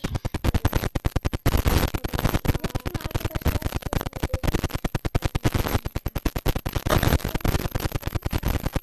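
Homemade jelly slime being squeezed and kneaded by hand, giving a rapid run of wet clicks and pops, about ten a second, with brief pauses.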